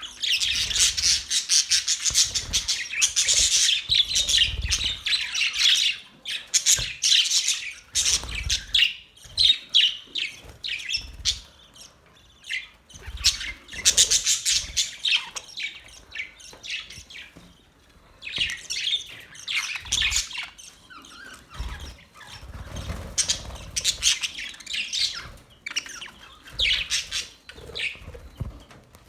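Small birds chirping and twittering in rapid, overlapping high calls, coming in busy spells with quieter gaps between them.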